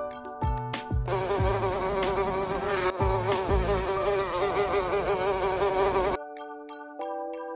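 A fly buzzing: a wavering drone with many overtones that starts about a second in and cuts off suddenly about six seconds in.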